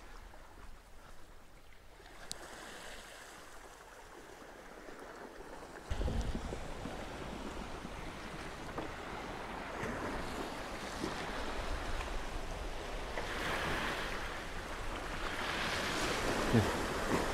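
Sea water washing against a rocky shore, with wind buffeting the microphone. About six seconds in it gets suddenly louder and keeps building slowly.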